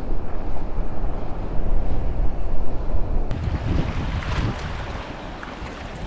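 Wind rumbling on the microphone over a flowing river. About three seconds in the sound cuts to river water running past rocks at the bank, growing quieter near the end.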